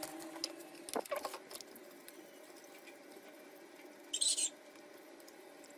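A few light clicks and taps, then a short high-pitched burst about four seconds in, over faint background noise.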